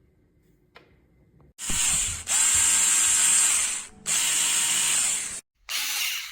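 Small cordless electric screwdriver motor running in four bursts, two short and two longer, its pitch rising as it spins up and falling as it winds down.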